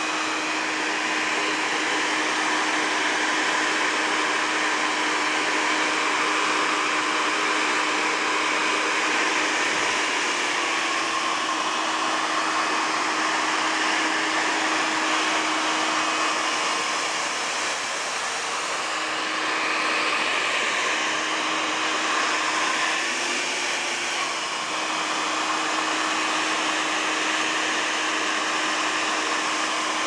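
Handheld hair dryer running steadily: a continuous rush of blown air over a steady motor hum, the sound shifting and dipping slightly a couple of times as the dryer is moved.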